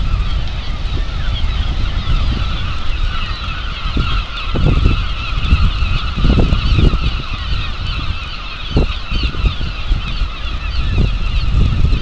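A gull colony calling continuously, many overlapping cries at once, over a low rumble that swells in gusts.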